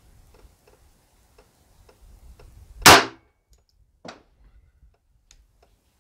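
A single shot from an HK45 .45 ACP pistol firing a 230-grain Federal Hydra-Shok round, sharp and loud, about halfway through. A fainter click follows about a second later.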